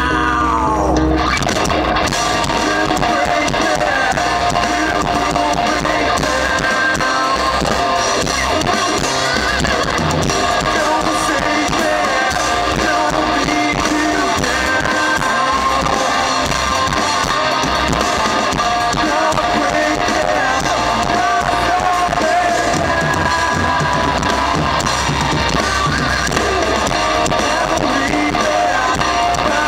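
Alternative rock band playing live: electric guitars and drum kit in a loud, dense, continuous full-band passage.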